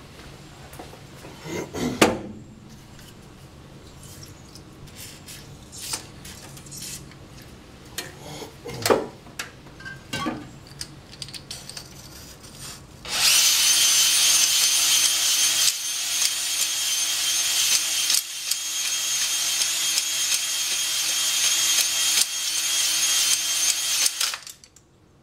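Electric drill on low speed at full trigger, spinning a cylinder hone whose stones scrape the WD-40-wetted wall of a Toyota 7A-FE cylinder as it is worked rapidly up and down to cut a 45-degree crosshatch: a steady high whine with a rasping scrape that starts about halfway in and stops sharply near the end. Before it there are only scattered clicks and knocks as the hone is set into the bore.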